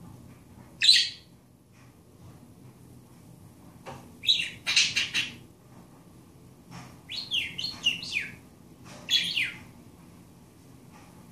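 Budgerigar chattering: a single chirp near the start, then three bursts of quick high chirps, some sliding down in pitch.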